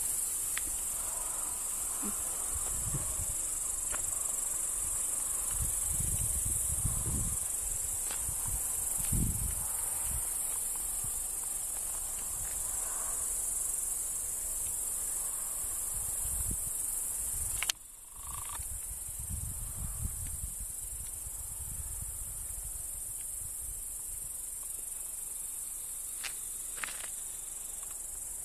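Crickets chirring in a steady, high-pitched evening chorus, with low gusts of wind rumbling on the microphone. The sound breaks off for a moment about two-thirds of the way through, then carries on.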